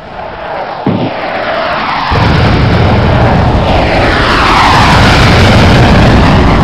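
Sound effects of jet aircraft flying past, their pitch sweeping as they go by, over a heavy low rumble. A knock about a second in, and the rumble jumps much louder about two seconds in.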